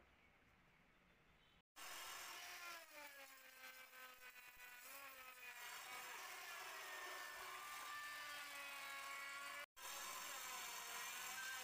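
Faint room noise, then after an abrupt cut about two seconds in, a workshop machine's motor whine with several tones sliding slowly up and down in pitch, broken by a brief dropout near the end.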